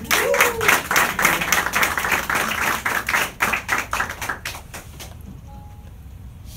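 Applause from a small audience, many hands clapping, dying away about five seconds in. A brief voice is heard near the start.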